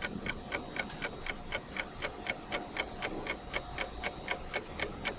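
Rapid, even ticking, about four ticks a second, with a faint steady tone underneath.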